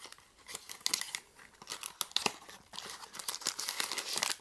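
Small cardboard blind box being torn open by hand, with the packaging crinkling: a busy run of quick tearing and rustling sounds that stops abruptly near the end.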